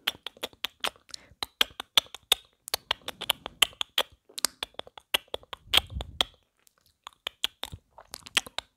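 ASMR mouth sounds made right at a lavalier microphone: quick tongue clicks and lip smacks, several a second, with a brief pause about two-thirds of the way through.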